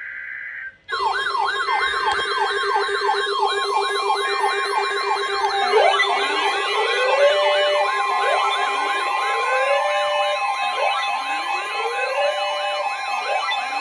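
Several electronic sirens sounding together: fast up-and-down wails about three a second, joined about six seconds in by a repeating whoop that climbs and then holds, roughly every two and a half seconds. A short steady tone comes just before the sirens start.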